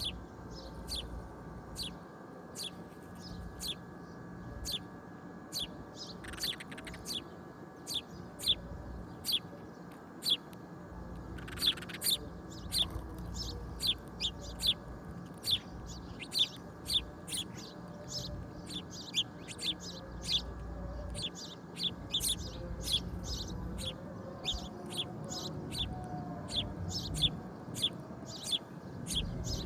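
Bird chirping over and over: short, sharp, high chirps about one and a half a second, with a steady low hum underneath.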